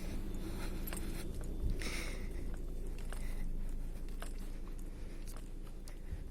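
Footsteps of a person walking on a road, with scattered clicks and a brief rustle about two seconds in.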